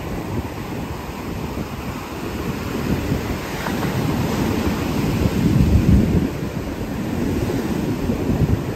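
Wind buffeting the microphone in an irregular, gusty low rumble that swells about five seconds in, over the wash of breaking surf.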